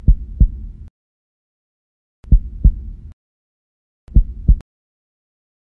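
Heartbeat sound effect: three pairs of deep double thumps, about two seconds apart, with silence between them.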